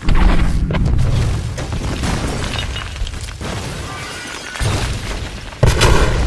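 Film explosion sound effects: a heavy boom right at the start that rumbles and crackles with debris as it dies away, a smaller hit a little past four and a half seconds in, and a sharp loud blast near the end.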